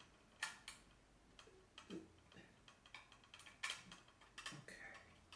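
A few sharp, light clicks and taps at irregular intervals, from handling a plastic 2.5-inch external drive enclosure and plugging in its USB cable, over a quiet room.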